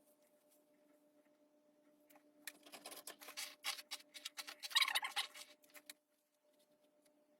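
Faint handling noise: a quick run of rustles, scratches and small clicks for about three seconds, starting a couple of seconds in, over a low steady hum.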